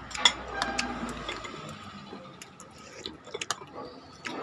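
Metal spoons clinking against ceramic plates and bowls while broth is scooped up, a scattering of sharp clinks with a little liquid sloshing.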